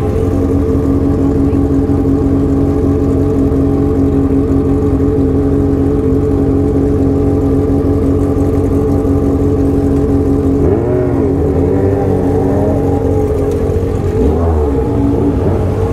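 Motorcycle engines idling steadily among a crowd of bikes, with an engine revved up and down a couple of times near the end.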